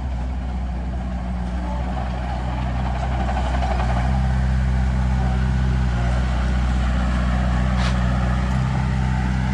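Large diesel engine of heavy machinery running steadily, growing louder about three and a half seconds in, with one brief sharp sound near the end.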